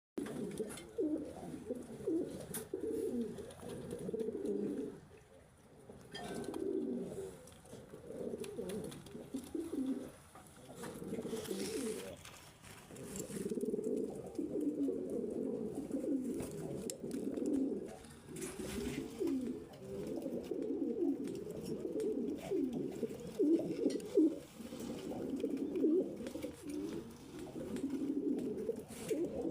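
Several domestic pigeons cooing at once, low warbling coos overlapping almost without pause.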